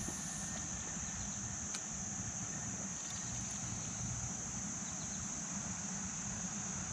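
Steady, high-pitched chorus of summer insects droning without a break, over a low rumble.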